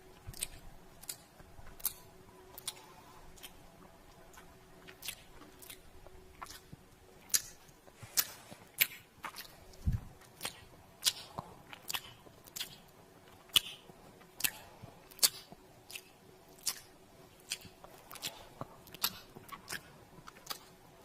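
Kissing sounds made with the lips: a long series of short wet smacks and pops, irregularly spaced at about one or two a second. There is one low thump about halfway through.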